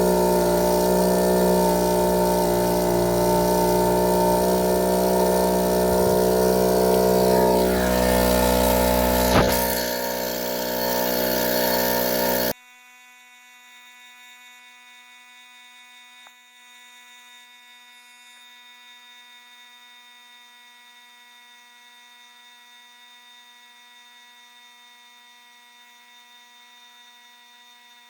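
The 12-volt air compressor of a Coaler Systems train horn kit runs loudly and steadily, filling the air tank, with a single sharp click about nine seconds in. It cuts off abruptly about twelve seconds in, leaving a faint steady electrical hum.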